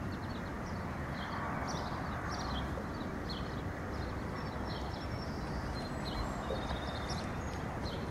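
Outdoor park ambience: a steady low rumble with many short, high bird chirps scattered throughout.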